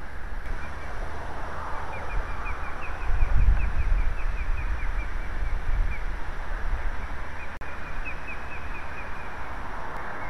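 Osprey alarm calls: two runs of short, high, quickly repeated whistles, about four or five a second. Under them is wind rumble on the microphone, with a stronger gust about three seconds in.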